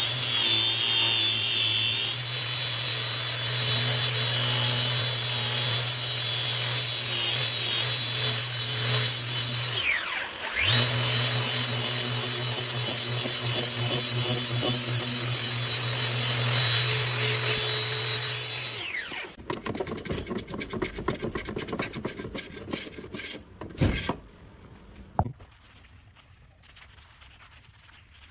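Random orbital sander with dust extraction running steadily against the edge of a solid oak stair tread, with a high whine over a low hum; about ten seconds in it spins down and starts up again, and it stops about two-thirds through. After that come irregular scratchy rubbing strokes on wood, then it goes much quieter with a few light knocks.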